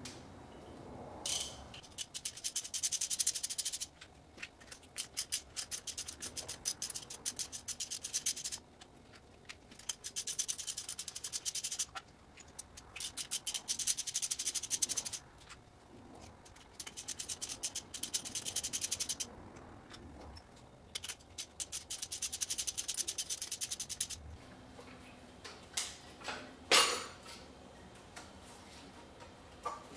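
Ratchet with a 10 mm socket clicking rapidly in about five bursts of a few seconds each as the lower intake plenum bolts are backed out. A few knocks follow near the end.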